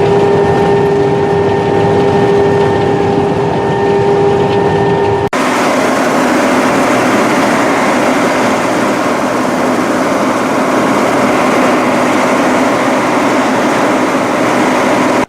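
Claas Mega 204 combine harvester running steadily, a loud machine drone with several steady whining tones. About five seconds in it cuts abruptly to a different steady run of the same machinery with a lower hum.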